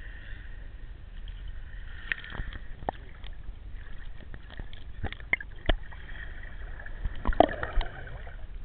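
Muffled underwater sound picked up by a camera held just below the surface of shallow sea water: a steady hiss and low rumble with scattered sharp clicks and knocks, busiest and loudest about seven seconds in.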